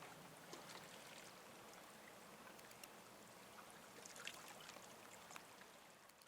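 Faint lapping of harbour water, a low steady wash with scattered small splashes and drips.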